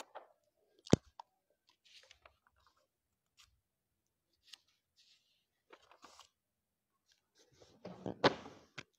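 Paper pages of a book being turned and loose papers handled at a desk. There is a sharp knock about a second in and scattered rustles, then a louder bout of rustling and knocks near the end.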